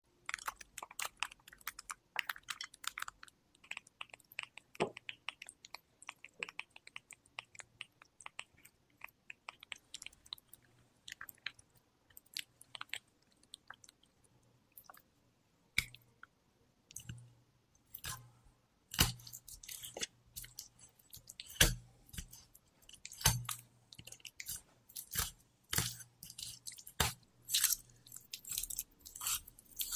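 Close-up food-preparation sounds: light clicks and crackles through the first half, then louder, irregular knife strokes and wet cuts on a wooden cutting board, about one or two a second, as raw chicken legs are cut off the bone.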